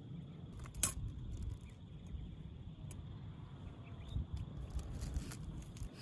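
Cutlery clinking against plates: one sharp clink about a second in and a few lighter taps near the end, over a low rumble of wind on the microphone.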